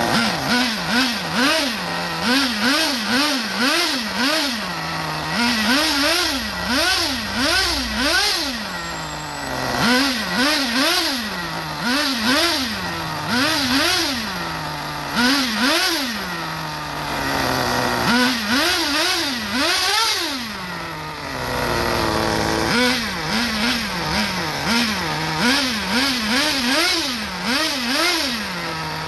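Small glow-fuel nitro engine of an RC monster truck revving in quick repeated blips, about two a second, in runs with short drops back to idle, revved free with the truck on a stand and its wheels spinning in the air.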